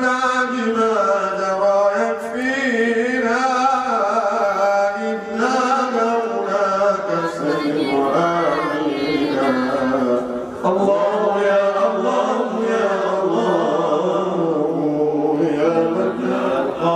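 A man's solo voice chanting an Arabic devotional poem into a microphone, in drawn-out, wavering melodic notes, with a short breath about ten seconds in.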